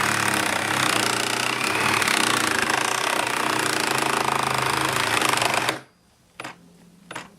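Milwaukee M18 Fuel reciprocating saw cutting through a nailed 4x4. It runs loud and steady, then stops suddenly about six seconds in as it bogs down and stalls on the nails. A few short knocks follow.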